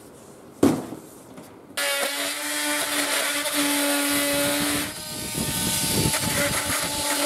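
A sharp knock, then about two seconds in a power tool's motor starts abruptly and runs with a steady whine, briefly dipping and picking up again.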